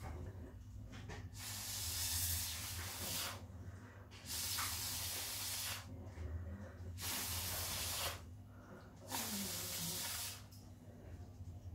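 Four long blowing hisses, each about one and a half to two seconds, with short pauses between them: a person blowing air onto wet acrylic pouring paint to push it across the canvas.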